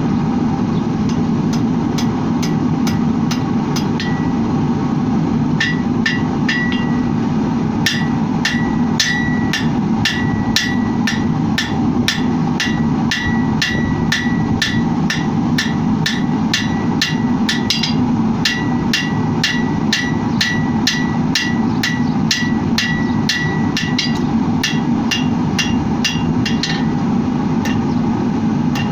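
Blacksmith's hammer striking steel on an anvil in a fast, even run of blows, about two or three a second, each with a short metallic ring. The blows thin out briefly about a fifth of the way in and again near the end. A steady low rushing noise runs underneath.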